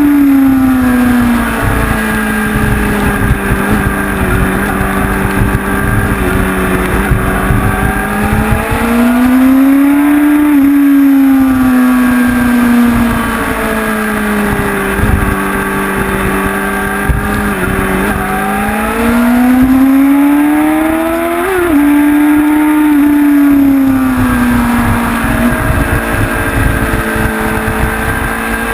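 Honda CBR sport bike's inline-four engine heard onboard at speed, with wind buffeting on the microphone. The revs rise and fall in long slow sweeps, with one quick sharp blip about 21 seconds in.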